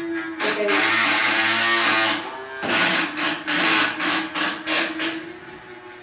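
Background guitar music: loud strummed chords in two long stretches over a steady held note, thinning out near the end.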